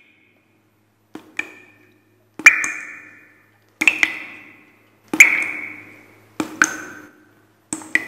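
A run of about six sharp, ringing sound-effect hits, about one every second and a third, some of them doubled. Each rings briefly and dies away; this is the sound design of an animated logo reveal.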